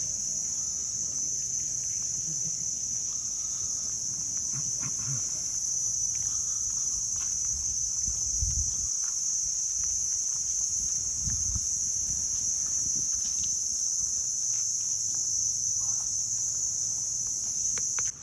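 A steady, high-pitched drone of insects, with a few faint low thumps; it cuts off suddenly near the end.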